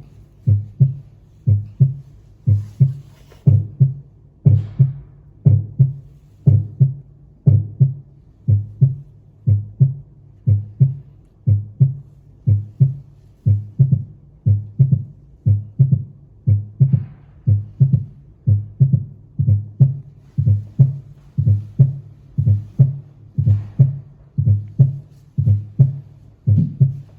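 Human heartbeat heard through a stethoscope: a steady, regular lub-dub, each beat a close pair of low thumps (first and second heart sounds), at a little more than one beat per second. Now and then there is a faint rubbing hiss.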